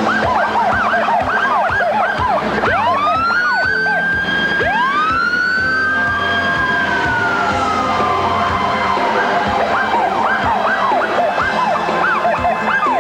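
Fire engine sirens on a run: a fast yelp, then long wails that rise and fall slowly from about two seconds in, with two wails overlapping. The fast yelp returns near the end, over the steady running of the truck.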